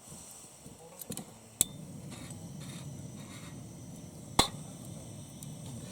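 Two sharp knocks about three seconds apart, with a few lighter clicks just before the first, over a steady low rumble.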